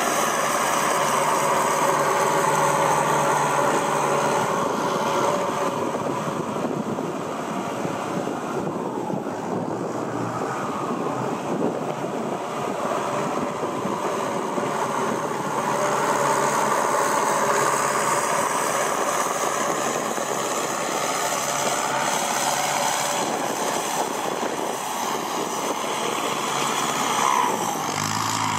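Kubota M6240SUH tractor's diesel engine running through a new aftermarket exhaust pipe. Its pitch slowly dips and rises again, twice.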